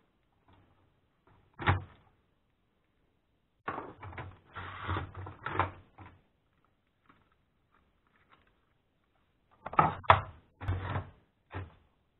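Laptop parts being handled during a teardown: plastic and metal clicking, scraping and knocking as the optical drive and the motherboard are taken out of the case. A single knock comes about two seconds in, a longer run of scrapes and clicks a few seconds later, and a cluster of sharp knocks near the end.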